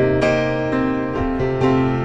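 Background piano music, notes struck about twice a second.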